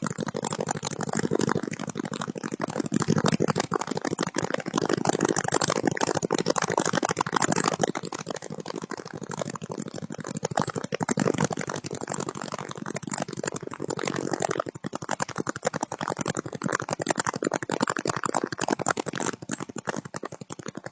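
A house fire burning, crackling and popping densely over a steady rushing noise, picked up through a doorbell camera's microphone.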